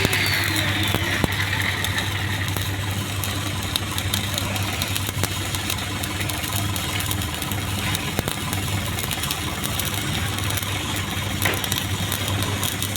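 Stick (SMAW) arc welding: the arc crackles steadily with fine sputtering clicks over a steady low hum.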